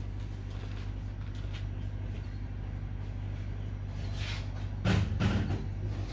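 Steady low machine hum, with a rustle, a knock and a short clatter a little before five seconds in.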